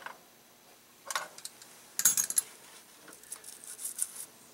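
Wrench clinking on the brass regulator fitting of an acetylene tank as it is loosened to make a leak, with a short hiss about two seconds in. Then a toothbrush scrubs soapy water onto the fitting, a light scratchy crackle.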